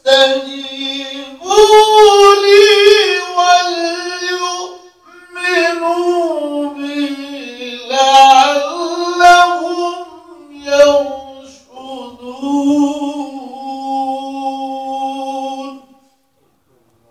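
A man's voice in melodic Quran recitation (tilawah), drawn out in several long phrases of held notes that bend up and down in pitch, with short breaths between them. It stops about a second before the end.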